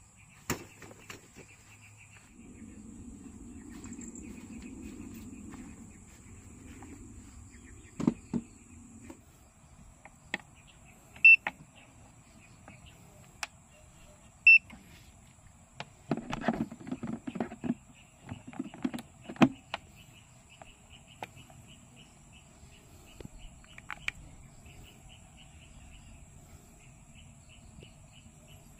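Insects chirring in a fast, steady trill, with a thin high whine alongside. Several sharp knocks and clicks sound through the middle, the loudest two standing well out, followed by a short stretch of clattering handling sounds.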